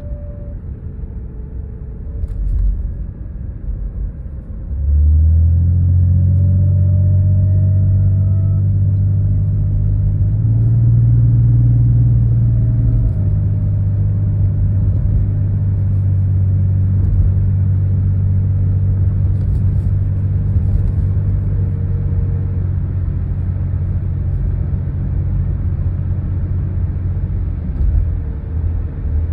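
Low, steady drone from a 1991 BMW E32 730iA with its M30B30 straight-six. The drone cuts in suddenly over a rumble about five seconds in, rises in pitch for a few seconds, then settles back and holds. It is the unidentified noise the owner is trying to trace.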